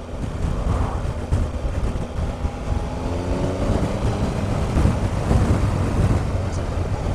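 Triumph Explorer's three-cylinder engine pulling under acceleration during an overtake, its pitch rising for about two seconds around the middle, over heavy wind rush on the helmet microphone.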